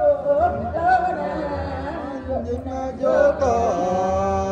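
A woman singing a traditional Kayan parap chant through a microphone: a single voice in a slow, wavering melody of long-held notes, with a steady sustained note in the last second or so.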